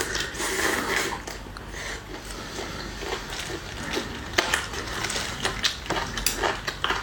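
Tableware being handled at a meal: bowls, plates and utensils clinking and clattering in scattered sharp clicks over a soft background rustle.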